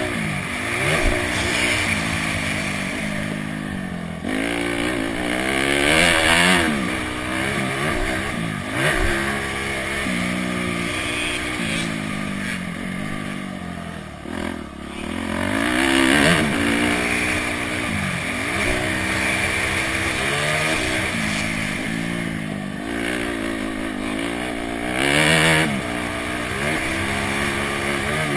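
Honda CRF250X's single-cylinder four-stroke engine being ridden, the revs climbing and dropping again and again with throttle and gear changes, loudest in a few hard bursts.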